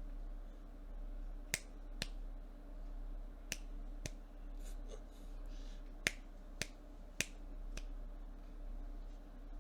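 About eight sharp, single clicks at irregular intervals, one every half second to two seconds, over a steady low hum.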